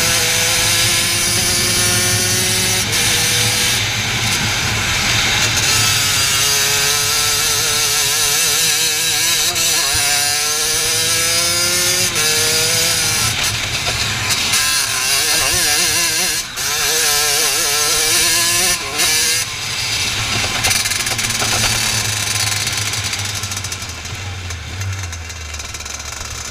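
Racing kart engine heard onboard at speed, its pitch climbing again and again as it accelerates out of corners and dropping back when the driver lifts. Near the end it slows down and gets quieter.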